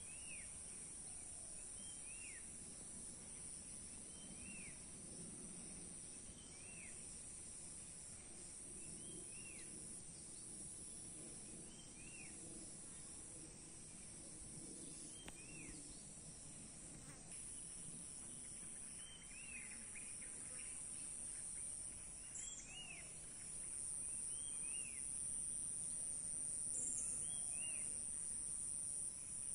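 Outdoor insect chorus: a steady high-pitched drone of crickets, with a short chirp repeated about every two seconds, growing a little louder near the end.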